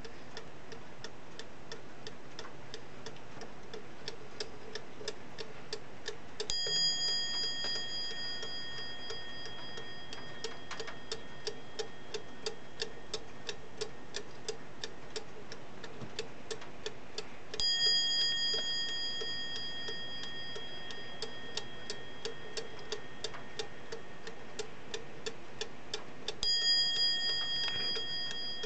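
Emes mantel clock's skeleton movement ticking steadily, several ticks a second. Its bell is struck three times, about ten seconds apart, and each stroke rings on and slowly fades under the ticking.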